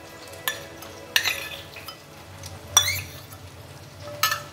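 A metal spoon scraping and knocking against a small stainless-steel bowl as ginger-garlic paste is scraped out onto raw chicken, with four sharp metallic clinks that ring briefly.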